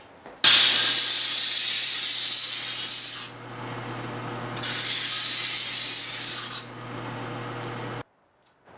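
Belt sander running with a steady motor hum while it grinds down the flattened sheet-metal end of a flex-duct fitting. The grinding hiss comes in two stretches with a lull between them, and the sound cuts off abruptly near the end.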